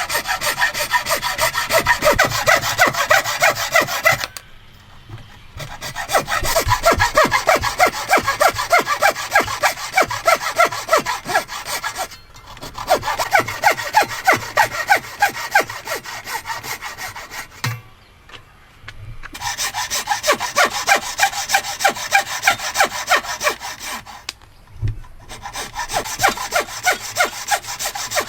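Hand saw cutting through wood with quick back-and-forth strokes, about three a second, in four runs broken by short pauses.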